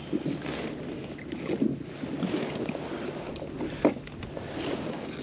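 Water lapping against a fishing kayak's hull with a light wind, broken by small handling knocks and one sharp click a little under four seconds in.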